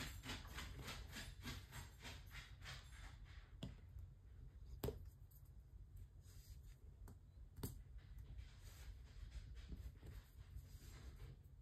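Soft clicks and taps of a diamond-painting drill pen picking resin drills from a plastic tray and pressing them onto the sticky canvas, a quick run of about three or four taps a second at first, then a few separate sharper clicks. A faint steady hum runs underneath.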